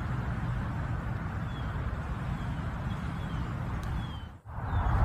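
Steady low background rumble with no distinct strike, and a few faint, short, high, falling chirps in the middle; the rumble drops out briefly near the end.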